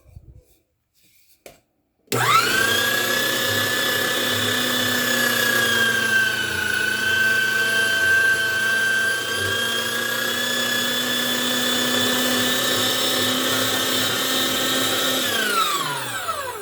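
Electric meat grinder's motor switched on about two seconds in, running with a steady high whine whose pitch sags briefly in the middle, then switched off near the end and winding down with a falling whine.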